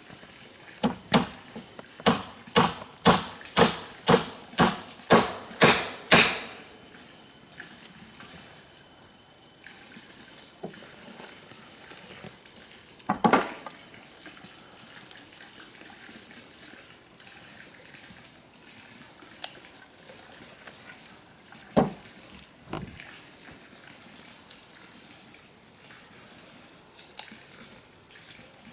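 A run of about ten sharp knocks, roughly two a second, ending about six seconds in, then a few single knocks spaced well apart, typical of a tool striking material during rough building work.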